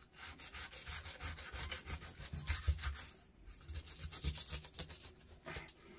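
Sharp knife scraping along a largemouth bass's backbone as it slices the fillet off the second side, in rapid scraping strokes with a short pause about three seconds in.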